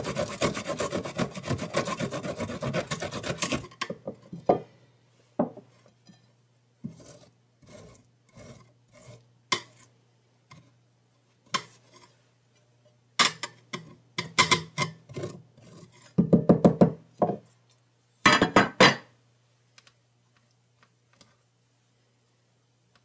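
Fresh ginger root grated by hand on a flat metal grater. A fast, dense run of rasping strokes lasts the first few seconds, then short bursts of strokes come on and off, and it goes quiet near the end.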